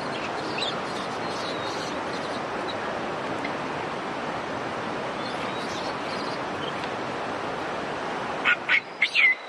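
A steady rushing background noise. Near the end come a few short, loud, high-pitched calls from Japanese macaques, the last one sliding down in pitch.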